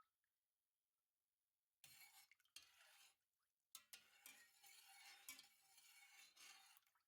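Faint kitchen handling: a utensil stirring and clinking in a pot of sage syrup, in two stretches starting about two seconds in, with a few sharp clicks.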